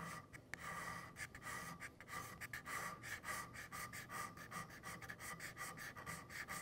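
Steel card scraper held almost flat, taking paring cuts across the end grain of a wooden workpiece: a quick run of short scraping strokes, several a second.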